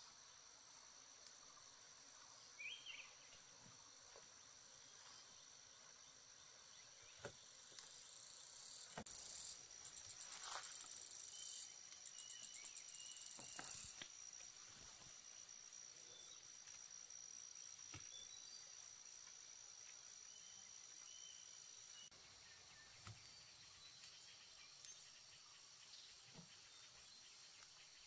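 Faint insects calling outdoors: a steady high trill runs most of the way, with a louder, rapidly pulsing buzz for a few seconds in the middle. A few short chirps and small clicks come over it.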